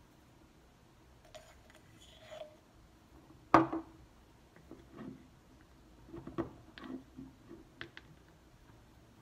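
A plastic measuring spoon knocking against a small glass bowl while spices are added: one sharp knock a little over three seconds in, then several lighter taps and clicks.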